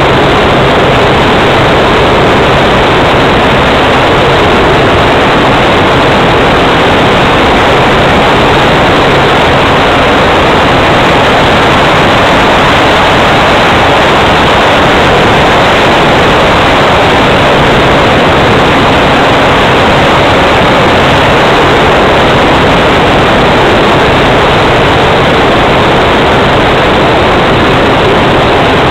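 Multiplex Cularis RC glider in flight, heard through its onboard camera: a loud, steady rush of airflow with a faint low hum underneath.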